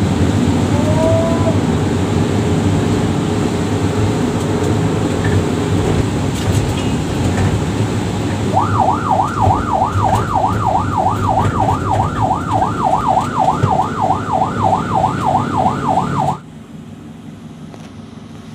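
Ambulance siren wailing in a fast up-and-down yelp, about three cycles a second, heard from inside a moving vehicle over loud engine and road noise. The siren comes in about halfway through, and the whole sound drops away suddenly near the end.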